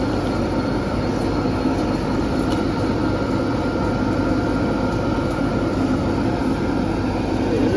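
Thin-blade slitter scorer for corrugated paperboard running, a steady, even mechanical rumble with a faint constant whine above it.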